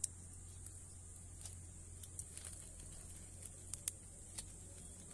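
A small open wood fire crackling faintly under a wire grill, with a few short sharp pops scattered through, over a steady faint high hiss.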